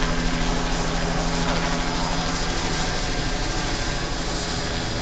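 Helicopter flying overhead: steady rotor and engine noise with a rapid pulsing beat from the blades, easing slightly toward the end.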